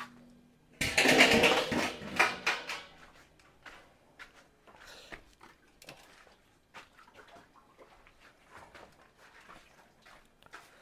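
A steel basin clattering loudly for about two seconds as it is handled, then scattered light knocks and handling sounds.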